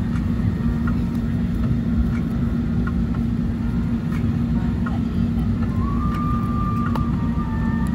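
Airbus A320 cabin at the gate: steady rushing air-conditioning noise with a constant low hum, and a few faint brief higher tones over it.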